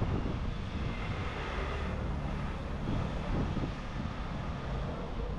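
A steady, low engine rumble from passing motor traffic or an aircraft.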